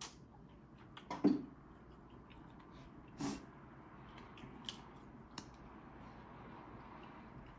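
Close-miked mouth sounds of eating mussels: a few wet smacks, slurps and lip clicks at irregular intervals, the loudest about a second in.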